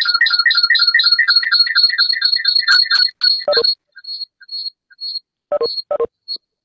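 Rapid electronic beeping, about five high-pitched beeps a second, like an alarm or ringtone, coming in over an open microphone on the video call. It breaks off about three seconds in, leaving a few scattered beeps and short bursts of noise.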